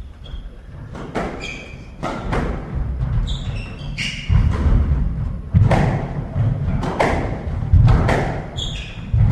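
Squash rally: the ball is struck by rackets and thuds off the court walls about once a second. Short high squeaks of court shoes on the wooden floor come in between.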